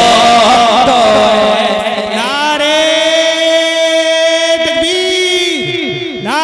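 Wordless devotional naat chanting: a wavering melodic line, then from about two seconds in a long held note over a steady drone, with falling pitch slides near the end.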